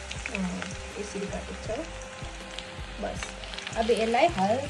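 Chopped ginger and garlic frying in hot oil in a wok, a steady crackling sizzle.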